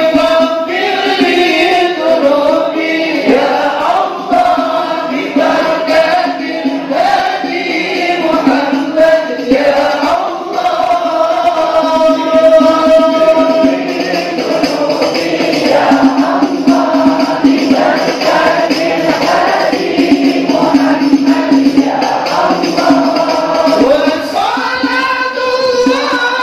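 A large congregation singing an Islamic devotional chant together in long, drawn-out phrases, with scattered percussion strokes.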